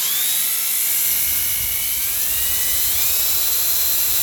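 Black & Decker electric drill with a metal bit running at speed, drilling through a steel bicycle frame tube. Its whine climbs as it spins up at the start and rises again about two to three seconds in.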